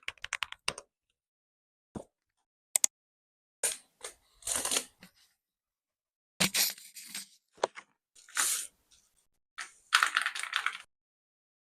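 Aula L99 mechanical keyboard with its stock switches being typed on in bursts: a quick run of key clicks, a couple of single presses, then several denser runs of clattering keystrokes with pauses between.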